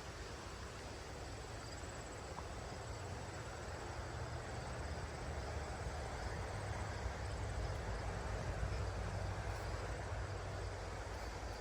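Steady rushing noise of a flowing creek, slowly growing louder, with a faint high insect trill above it.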